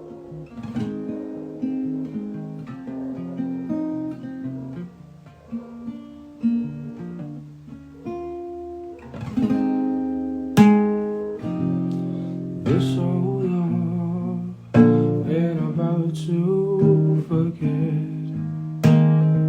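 Instrumental song intro led by acoustic guitar, with picked notes and strummed chords.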